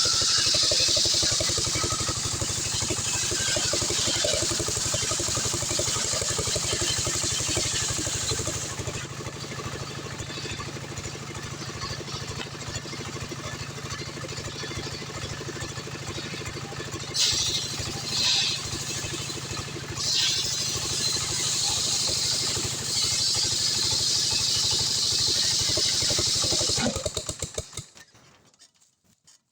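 Stihl 070 two-stroke chainsaw running at speed, with a high hiss over the engine note that comes and goes as the chain cuts through hardwood. Near the end the engine is shut off and winds down to a stop.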